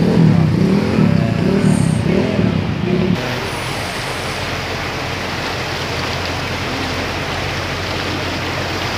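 Motor traffic on a flooded road: vehicle engines with a steady wash of water and tyre noise. For about the first three seconds a louder engine note wavers up and down, then the sound settles into an even rush.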